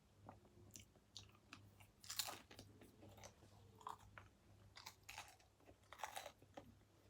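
A person chewing a mouthful of pizza close to the microphone: soft, irregular mouth clicks, with a few louder crunches of crisp crust about two, five and six seconds in.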